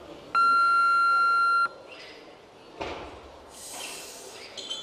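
Weightlifting referee's down-signal: one steady electronic beep lasting just over a second, telling the lifter the lift is complete and the barbell may be lowered. A dull thud follows about three seconds in.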